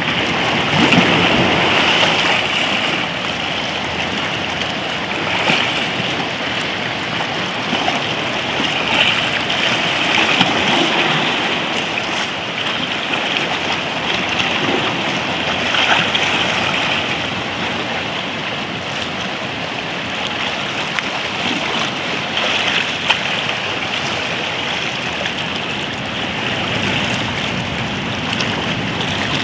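Small sea waves washing and lapping around rocks in shallow water: a steady hiss of moving water that swells and eases every few seconds.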